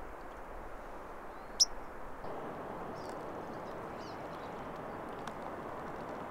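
A small bird gives one sharp, quick chirp about a second and a half in, followed by a few fainter chirps, over a steady rushing hiss of open-air ambience.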